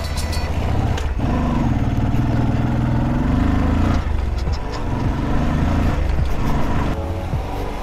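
Bajaj CT 125X's single-cylinder engine running under load on a rough dirt track, its note rising slightly and then dropping away about four seconds in, over a steady rumble of wind and road noise.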